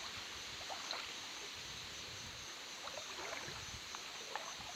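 Faint, steady flow of river water, with a few small clicks and sloshes.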